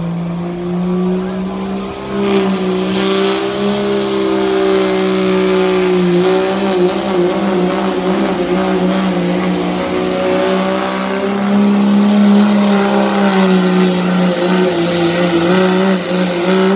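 2006 Dodge pickup's engine at full throttle pulling a weight-transfer sled down a truck-pull track, held at high revs for the whole run. A high whine rises over the first few seconds, and the engine gets louder about two seconds in. It drops off abruptly at the end as the run finishes.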